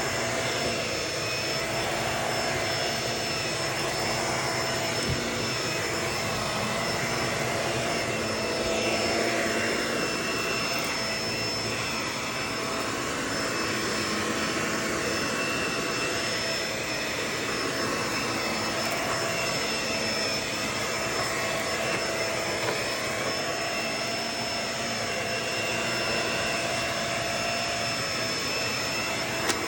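Vacuum cleaner running steadily: a constant rush of air with a steady high whine over it, the pitch wavering a little now and then.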